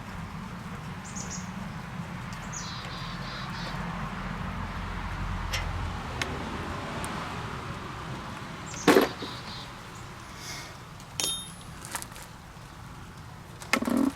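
Tools and metal parts being handled during tractor rear-brake disassembly: scattered clinks and knocks, with one loud clank about nine seconds in and another near the end, over a low steady hum that fades about halfway. A few short high chirps sound in the first five seconds.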